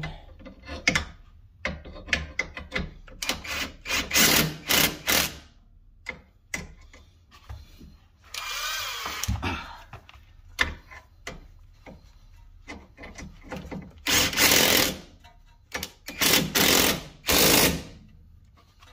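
A wrench tightening bolts on a Honda Civic's front knuckle and lower ball joint after a CV axle replacement. Repeated short bursts of clicking and metal rattle come in quick groups a few seconds in and again near the end, with a longer run of rattling about eight seconds in.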